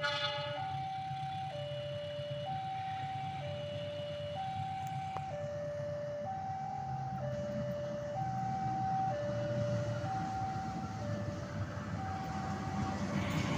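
Railway level-crossing warning alarm sounding an alternating high-low two-tone signal, each tone about a second long, as a KAI CC206 diesel locomotive approaches with a low engine rumble that grows louder toward the end.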